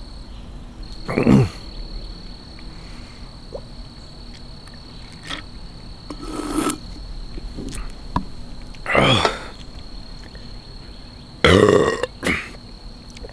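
A man belching loudly about five times, a few seconds apart with two close together near the end, while shotgunning a can of beer.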